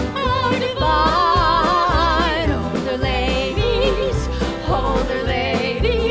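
Two women singing long notes with wide vibrato over an acoustic band: plucked upright bass, banjo and guitar.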